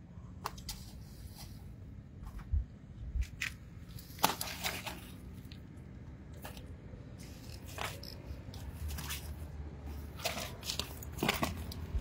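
Scattered wet taps, slaps and rustles as a live milkfish is handled and set down on a net bag, over a faint steady hum. A few louder knocks come about four seconds in and again near the end.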